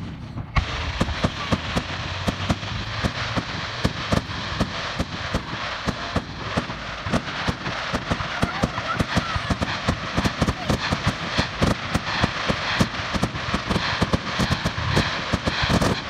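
Fireworks display in a rapid barrage: many bangs in quick succession over a steady crackling, with no let-up after the first half second.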